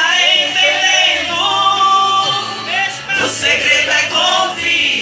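Women singing a Portuguese gospel hymn together, the lead voice amplified through a handheld microphone.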